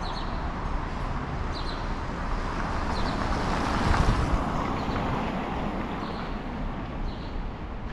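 City street traffic noise, with a vehicle passing that swells loudest about halfway through. Faint short high chirps recur every second or so.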